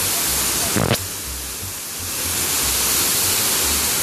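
Large waterfall's water rushing steadily, with one brief knock about a second in.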